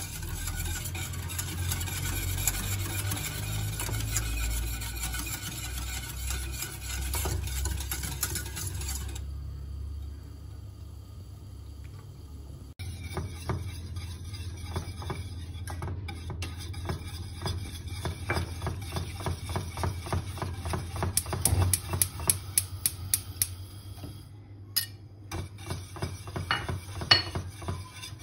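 Wire whisk stirring a milk pudding mixture in a stainless steel saucepan. It scrapes steadily at first, then goes quieter for a few seconds, then ticks rapidly against the pan's sides, with sharper clicks near the end.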